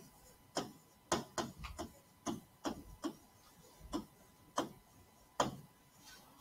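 A stylus clicking and scratching on a writing surface as words are handwritten: about a dozen short, irregular taps.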